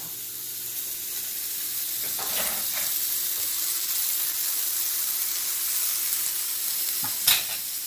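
Mushrooms, onion and garlic sizzling in a hot wok, a steady frying hiss. A couple of faint knocks come about two and a half seconds in, and a sharp click comes near the end.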